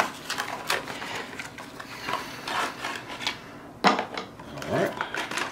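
Handling noise of black power cords and their plastic plugs being rustled and set down on the plastic lid of a Goal Zero Yeti 400 power station: scattered clicks and rubbing, with one sharp knock about four seconds in.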